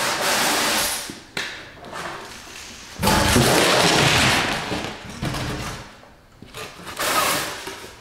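Foam packing panels scraping and rubbing against cardboard as they are pulled out of a shipping carton and dropped into another box, in three long scraping stretches with a couple of short knocks between them.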